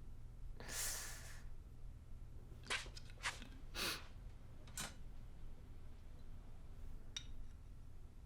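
A soft breath or sigh, then several short, separate clicks and light knocks.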